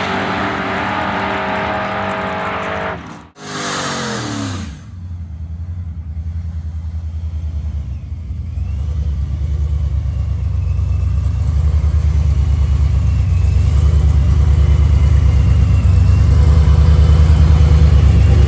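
A drag-racing pickup truck's engine running hard at high revs, cut off abruptly, then falling in pitch as it lets off. After that it settles into a low, pulsing idle that grows steadily louder.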